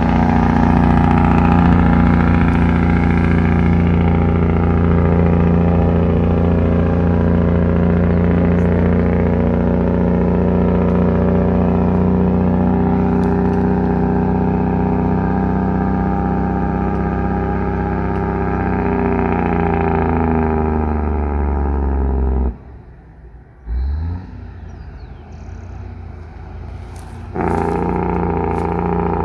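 Loaded diesel semi truck's engine brake running on a downhill, a loud, steady, deep drone. It drops away abruptly about three quarters of the way in and returns a few seconds later.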